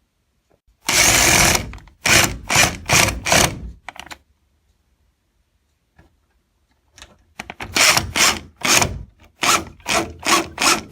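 Two screws being driven to fix a door latch plate into the door edge: a short continuous run of the tool, then a string of short turns about three a second, and after a pause a second run of such turns for the second screw.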